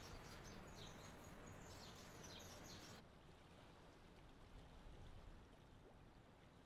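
Near silence: faint background hiss with distant birds chirping during the first three seconds. About three seconds in, the background cuts abruptly to quieter room tone.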